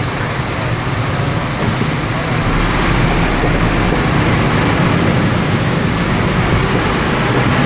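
Scania P310 fire truck's diesel engine running, heard from inside the cab as the truck rolls through slow traffic. It is a steady low drone that grows a little louder and deeper about two to three seconds in.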